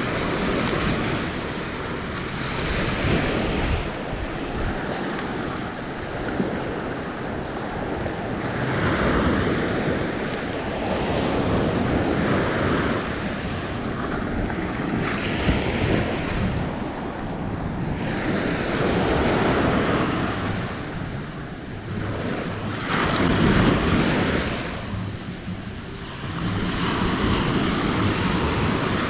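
Small ocean waves breaking and washing up the sand at the water's edge, swelling every few seconds, with wind buffeting the microphone.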